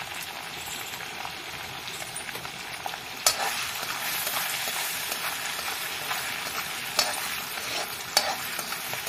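Diced paneer and capsicum sizzling in butter and oil in a black kadai, with a steady frying hiss. From about three seconds in a metal spoon stirs them, knocking sharply against the pan three times, and the sizzle grows a little louder.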